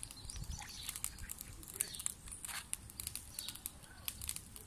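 Small birds chirping in the background, a scatter of short high chirps.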